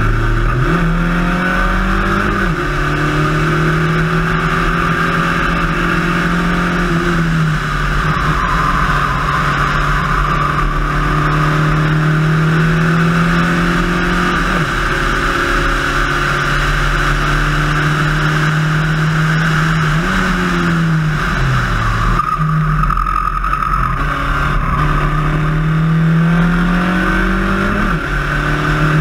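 Spec Racer Ford race car's engine pulling hard at high revs, heard from on board. Its pitch climbs steadily and breaks several times at gear changes and lifts, with a dip near the end of each, over constant wind and tyre noise.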